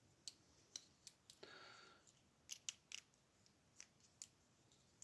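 Faint scattered small clicks and a short scrape from a pin-tumbler lock and small tools being handled, about a dozen light ticks at uneven intervals.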